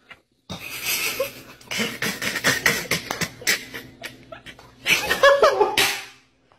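A person laughing hard in a run of pulsing bursts, loudest and higher-pitched near the end.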